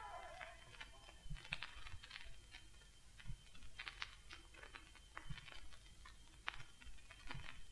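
Vinyl record surface noise in the silent groove between tracks: scattered clicks and pops over a faint hiss.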